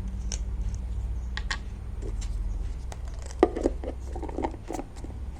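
Light clicks and taps of small objects being handled, with a cluster of knocks about three and a half seconds in, over a steady low hum.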